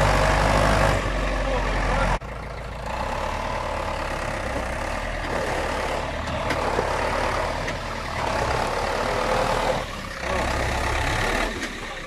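David Brown 1390 tractor's diesel engine running while it pulls a dead tractor on a tow chain. The steady engine note drops abruptly about two seconds in and carries on more faintly.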